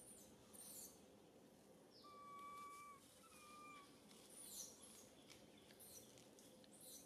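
Faint whistled animal calls. One long, even, clear tone comes about two seconds in and a shorter one follows just after, while several quick high chirps slide down in pitch.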